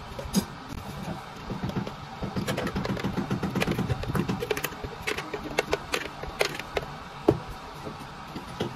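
A plastic blender jug knocks and clatters against plastic cups as a thick blended drink is tipped and shaken out of it, with sharp taps scattered throughout. A low hum runs underneath, strongest in the first half.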